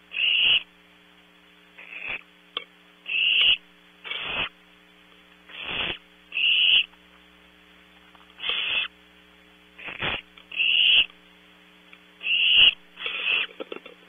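Barn owlets making their raspy hissing begging calls, about a dozen short hisses of roughly half a second each, one every second or two, over a steady faint electrical hum.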